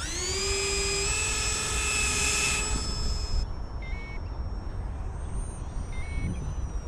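Twin 30mm brushed electric ducted fans spooling up to a high whine, held for about three and a half seconds, then throttled back to a quieter whine. Two short beeps about two seconds apart come from the transmitter's low-voltage alert, its voltage dropping as the fans are revved.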